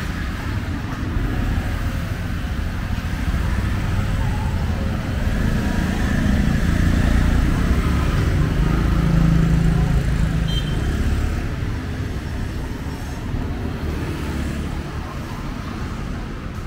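Street traffic: vehicle engines rumbling steadily, swelling louder about halfway through as a vehicle passes close, then easing off.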